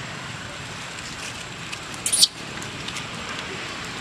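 Faint crackling and ticking of dry leaf litter over a steady outdoor hiss as the nursing monkeys shift on the ground. About two seconds in, a short loud high-pitched burst.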